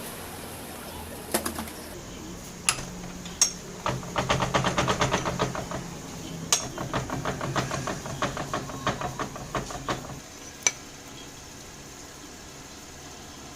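Hand work on a motorcycle's rubber-cushioned clutch-side gear while its worn rubber dampers are being replaced: light metallic clicks and taps, coming fast, several a second, for a stretch of several seconds before stopping about ten seconds in. A steady low hum runs underneath.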